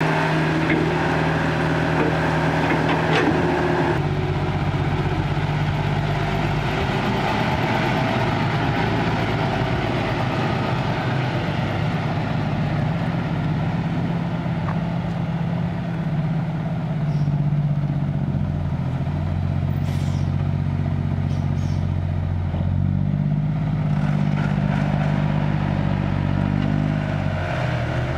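Diesel engines of a Caterpillar tracked excavator and a six-wheel dump truck running steadily, their pitch rising and falling as the excavator digs and loads soil and the truck moves off, with a few light knocks.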